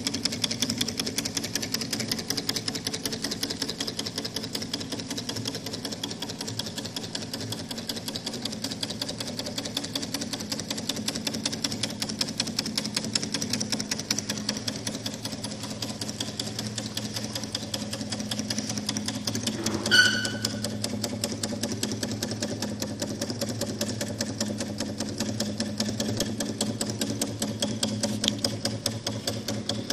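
Small homemade Stirling engine running steadily, a fast mechanical clatter of many ticks a second. A brief high chirp cuts in about two-thirds of the way through.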